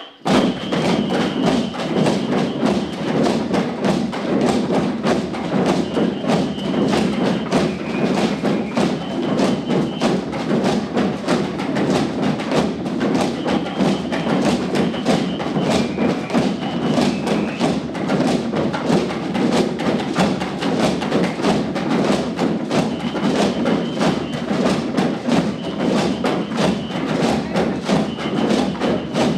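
A large ensemble of drums playing together in a steady, dense rhythm: rope-tuned bass drums, hand drums and plastic buckets struck with sticks and hands. It starts abruptly, and a high held tone comes and goes above the drumming.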